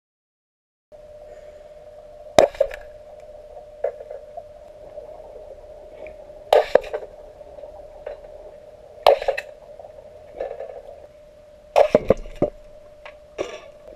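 Underwater sound in a swimming pool: a steady hum, with sharp knocks and clicks every few seconds and a quick run of three near the end. It starts about a second in.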